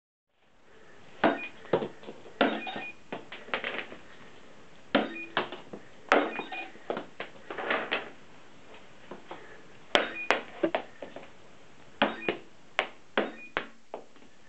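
Balls striking a homemade plywood target game, in clusters of sharp knocks a second or two apart, some followed by bouncing. After several hits the game's small speaker gives short electronic beeps, scoring the hit.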